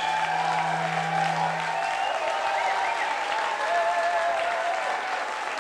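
Audience applauding at the end of a piece of live electronic music, with a last low note held for about the first two seconds.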